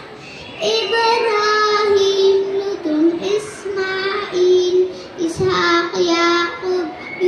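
A young girl singing solo, the names of the prophets, in long held notes with short breaks between phrases.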